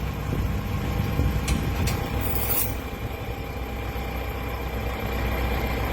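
Heavy diesel engine idling steadily, with a short hiss a little over two seconds in.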